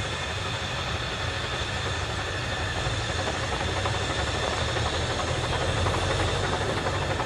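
Narrow-gauge steam locomotive running along the line at a distance, a steady sound that grows slowly louder as it approaches.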